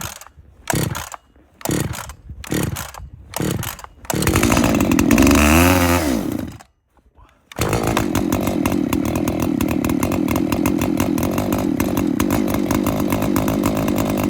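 Cold Echo 680 two-stroke chainsaw being pull-started at about 8°F: several recoil pulls, then it fires about four seconds in and runs unevenly for a couple of seconds. It stops briefly, then starts again and runs steadily.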